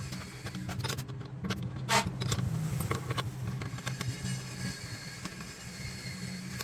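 Electric machine motor running with a steady low hum, with scattered metallic clicks and one sharp knock about two seconds in.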